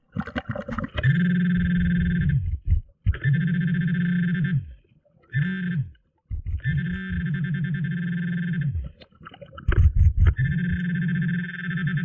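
Waterproof Garrett pinpointer alerting underwater in five buzzing bursts, as it is probed among bottom stones, the sign that it is near a metal target. The bursts last from about half a second to a couple of seconds, and each one sags in pitch as it cuts off. Short knocks of stones and hand fall between bursts.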